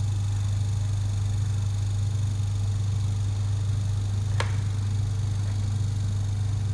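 Vacuum pump of a leak test chamber running with a steady low hum, pulling the chamber down toward its set vacuum. A single sharp click about four and a half seconds in.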